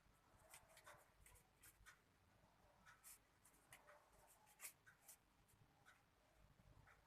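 Faint rustling and small irregular clicks of disposable examination gloves being pulled onto the hands.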